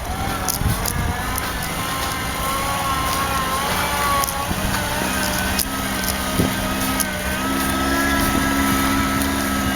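Niva off-roader's engine running under load, its pitch wandering then holding and creeping up after about five seconds, with scattered knocks, the sharpest about six seconds in.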